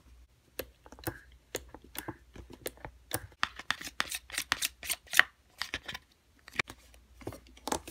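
Plastic spoon stirring white glue and lotion in a plastic bowl: a rapid, irregular series of clicks and short scrapes of the spoon against the bowl and the sticky mixture.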